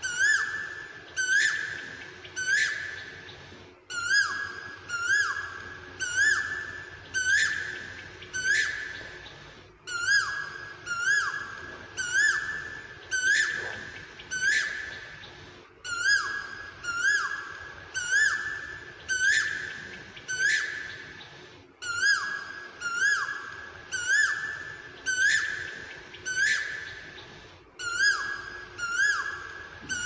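Male Asian koel calling: loud whistled two-note calls repeated about once a second, each starting sharply and trailing off.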